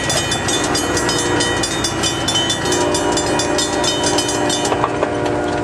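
Grade-crossing warning bell ringing in rapid, even strikes as a diesel-hauled passenger train passes close by, with the locomotive and wheels running underneath. The bell strikes fade out near the end, while steady lower tones hold in from about midway.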